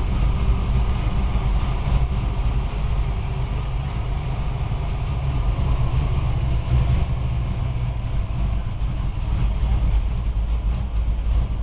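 Rebuilt 1992 Ford Mustang 5.0 V8, bored .030 over with a Trick Flow Stage 1 cam, idling steadily shortly after a cold start.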